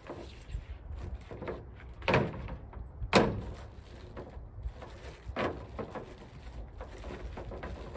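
Knocks and rustling as small parts and a bag of screws are handled on a pickup's tailgate, the two loudest knocks about two and three seconds in. Wind rumbles on the microphone throughout.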